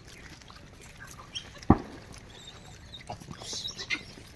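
Scattered small clicks, knocks and rustles from a troop of gray langurs foraging on dry ground, with one sharp thump a little before two seconds in and a short burst of rustling near the end.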